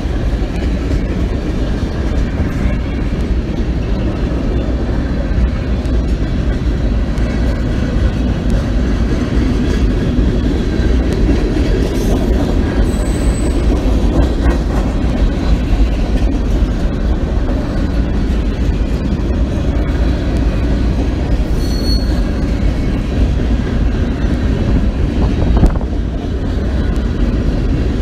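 Freight train cars, tank cars and then open-top gondolas, rolling past close by: a steady, loud rumble and clatter of steel wheels on the rails. Brief high-pitched wheel squeals come through about halfway through and again later on.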